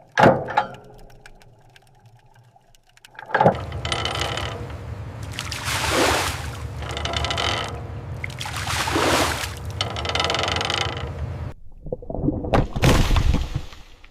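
Metal clanks, then a machine running low and steady under several loud scraping swells of metal on metal, ending in a quick cluster of clanks and knocks.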